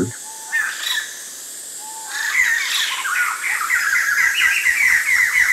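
White-crested laughing thrushes singing together: a few scattered calls, then from about two seconds in a dense chorus of rapid, sliding, chattering notes.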